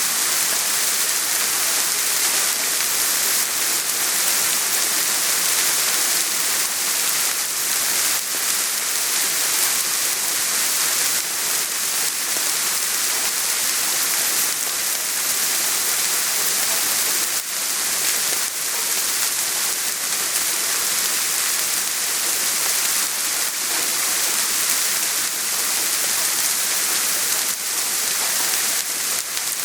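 Steady rain falling, a dense even hiss with faint patter of individual drops.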